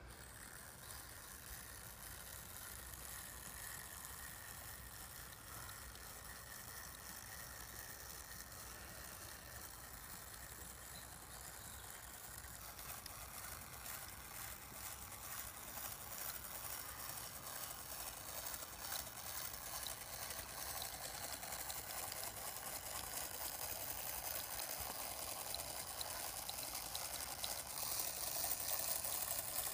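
Brass gear train of a hand-cranked orrery turning, a steady light whirr with fine clicking of gear teeth, slowly getting louder.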